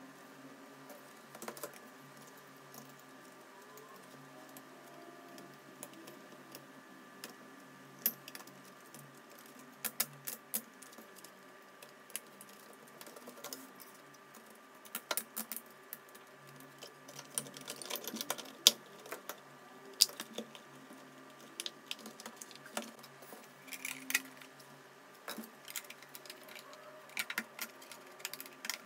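Plastic housing of a Bosch CNHR22 mixer being handled and fitted back together by hand: irregular clicks, taps and knocks of hard plastic parts, busier in the second half.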